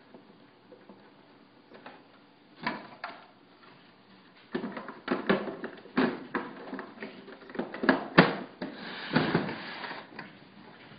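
Plastic clicks and knocks from handling a Uniwell SX8505 till's casing while its screws are refitted with a screwdriver and the till is tipped back upright, with a short scraping sound near the end. The first couple of seconds are quiet.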